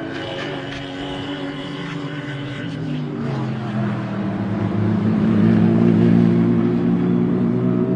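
Car engine running, with a faint high whine over it for the first few seconds. About three seconds in, the engine note drops lower and grows louder.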